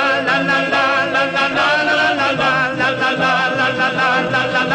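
Music: a wordless interlude of a guitar song, a held, slightly wavering melody line over a quick, steady accompaniment.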